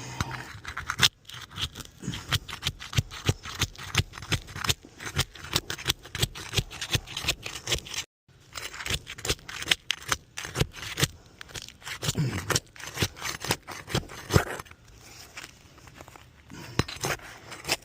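A crowbar prying and scraping under sealed CertainTeed Patriot asphalt shingles, with irregular crackling and tearing as the shingles rip instead of releasing. The seal strips have bonded so hard that the shingle mat separates, called material transfer, so the shingles cannot be lifted for repair.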